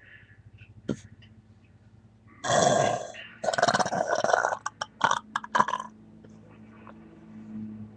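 A person burping loudly from gulped Coca-Cola: two long, rough burps about two and a half and three and a half seconds in, followed by a few short sharp clicks.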